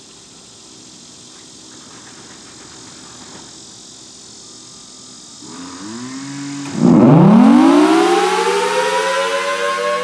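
Federal Signal Thunderbolt 1000T outdoor warning siren starting up for its one-minute alert test. After a few seconds of faint steady hum, a low tone begins rising about five and a half seconds in. Near seven seconds it jumps to a loud blast, and its pitch winds steadily upward.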